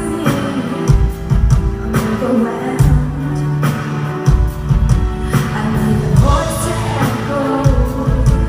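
Live pop ballad from a band: a singing voice over drum hits and sustained bass notes, played through the PA of a large concert hall and recorded on a phone's microphone.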